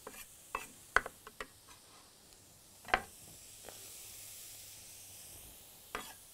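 A few sharp knife taps on a wooden cutting board as onion is diced, then a faint, steady sizzle of sliced mushrooms and chopped onion frying in a stainless steel pan.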